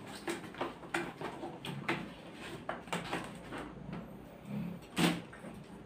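Objects being packed back into a cardboard box: scattered light knocks and taps, with one louder knock about five seconds in.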